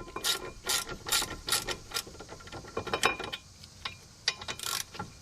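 Hand ratchet wrench clicking through a series of short strokes as a pair of 15 mm brake caliper bracket bolts are run in, pausing once partway through.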